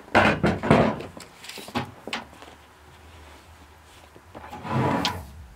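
A rough-sawn wooden board being handled and slid on a pickup's tailgate while a steel tape measure is pulled out along it: scraping bursts at the start, a couple of short knocks, and another longer scrape near the end.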